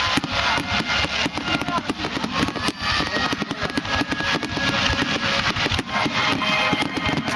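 Fireworks crackling: a dense, unbroken run of rapid pops and bangs.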